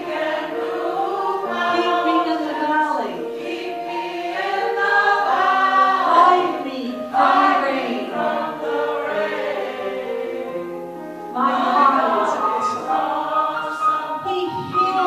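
A mixed-voice gospel choir singing in harmony, with sustained notes. It dips briefly before eleven seconds in, then comes back louder.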